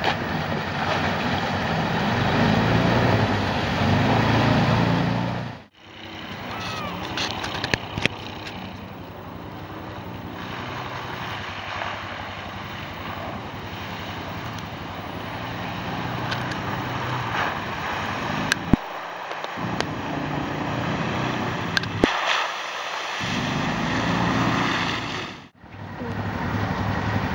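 Small engines of 6x6 amphibious ATVs running and driving, in a series of cut-together shots: close and fairly loud for the first few seconds, then farther off and quieter with a few sharp clicks, and close again near the end.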